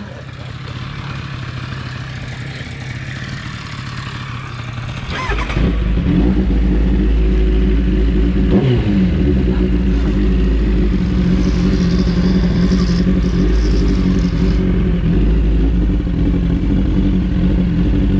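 Sport motorcycle engine starting about five seconds in, then running steadily, loud and deep.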